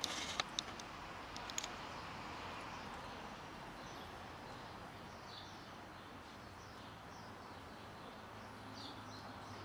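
Outdoor background noise with faint, scattered bird chirps and a few sharp clicks in the first couple of seconds.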